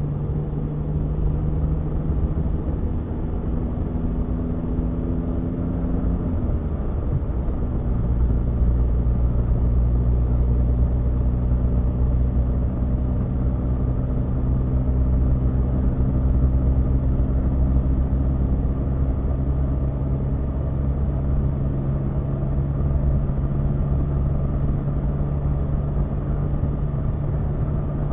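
Car engine and road noise heard from inside the cabin while driving at steady speed. About six seconds in, the engine note breaks and drops in pitch as the car shifts up a gear, then rises slowly again as it gathers speed.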